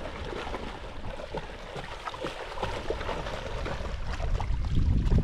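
Wind rumbling and buffeting on the microphone outdoors, with a stronger low gust near the end.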